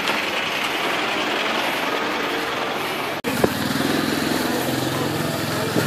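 Steady street noise, then after a cut about three seconds in, a small motorcycle engine running steadily.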